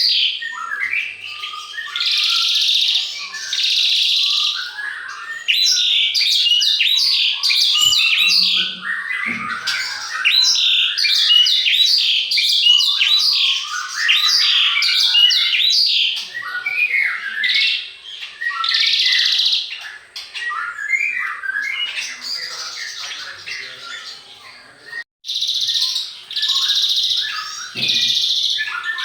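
Many songbirds chirping and calling at once, a dense chorus of quick overlapping chirps, trills and buzzy notes, broken by a sudden brief gap near the end.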